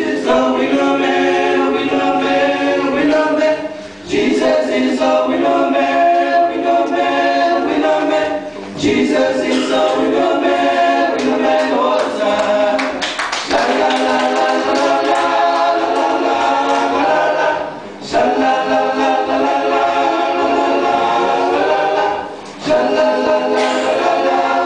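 Male a cappella group singing a medley in close harmony, holding chords in phrases of about four to five seconds with short breaks for breath between them.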